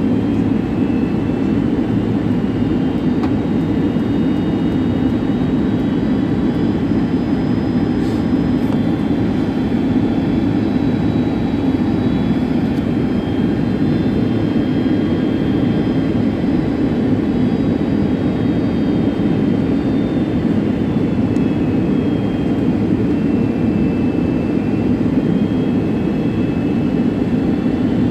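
Jet airliner cabin noise during the descent to land: a steady rush of engine and airflow noise heard from inside the cabin, with a faint high whine that drifts slightly in pitch.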